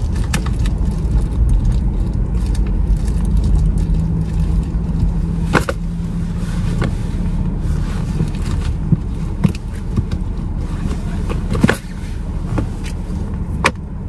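Steady low rumble of a car's running engine heard inside the cabin, with a few sharp clicks and rustles as things are rummaged for and handled.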